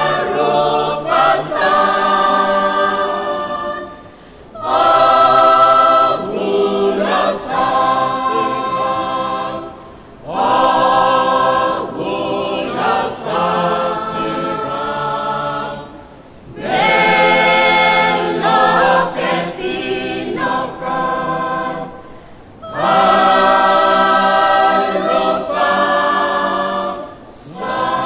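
Mixed church choir singing a hymn in Roviana a cappella, in phrases of about six seconds with short breaks for breath between them.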